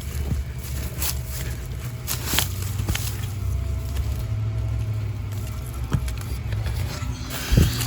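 Hands rummaging through compost, giving scattered soft knocks and scrapes and one louder thump near the end, over a steady low rumble.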